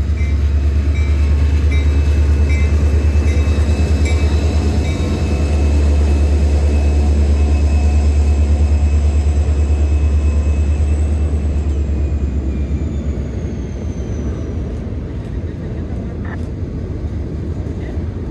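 Diesel locomotive of a freight train passing close, its engine throbbing loudly, then fading away after about twelve seconds. A level-crossing bell dings steadily in the first few seconds.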